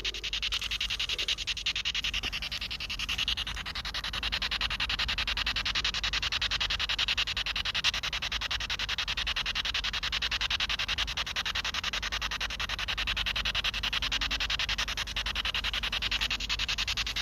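Steady static hiss with a fast, even flutter through it, from a ghost-hunting device's speaker left running to give off noise.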